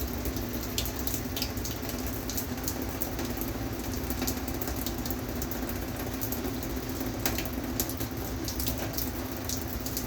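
Hot water running out of a homemade electric inline water heater as it heats mash water, a steady watery hiss with a low hum and scattered sharp pops and spits.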